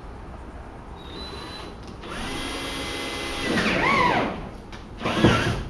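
Cordless drill with a twist bit boring a hole through a plastic kayak's gunwale. The motor whine starts about two seconds in, swings up and down in pitch as the bit cuts through, and comes back in a short second burst near the end.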